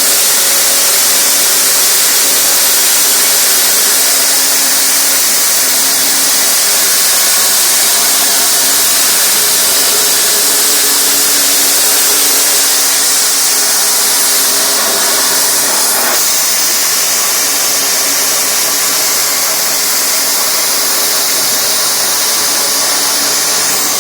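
Tractor-PTO-driven feed grinder running steadily while crushing barley, a loud whirring hiss of grain being broken, with the tractor's engine droning underneath.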